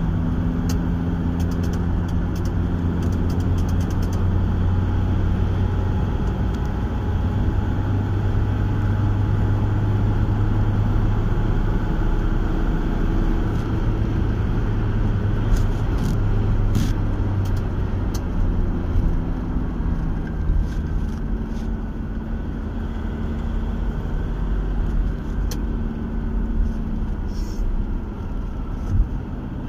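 Car engine and road noise heard from inside the cabin while driving at highway speed: a steady low drone whose pitch shifts slightly as the speed changes, with a few faint clicks and rattles.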